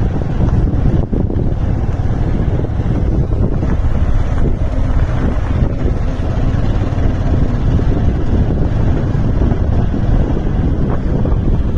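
Wind buffeting the microphone of a moving vehicle: a loud, steady low rumble with the vehicle's running noise mixed in.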